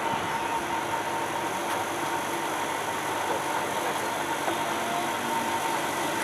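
Generator engine running steadily on producer gas from a biomass gasifier, with a constant whine over the engine noise.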